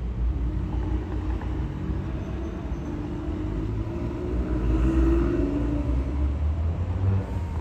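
Low, steady engine rumble with wavering tones above it, swelling about five seconds in.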